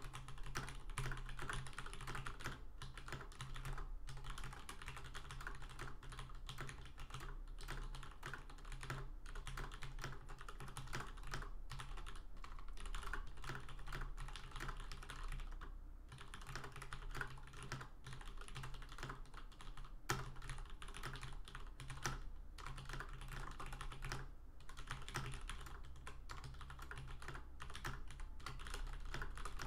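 Fast continuous typing on a Leopold FC980M mechanical keyboard with Cherry MX Black switches, a dense stream of keystroke clicks and clacks with brief pauses between bursts.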